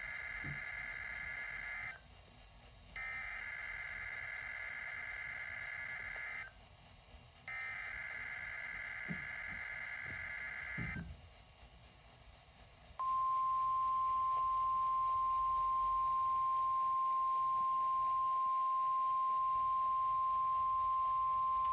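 NOAA Weather Radio Emergency Alert System data tones: the end of one SAME header burst and then two more, each a harsh digital warble lasting about three seconds with a short gap between. About thirteen seconds in, a steady, louder single-pitch warning alarm tone near 1 kHz begins, the weather radio's 1050 Hz alert tone.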